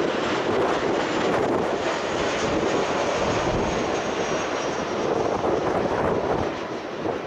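Boeing 737-800 on landing approach, its CFM56 jet engines giving a steady rushing roar with a faint high whine that slowly falls in pitch.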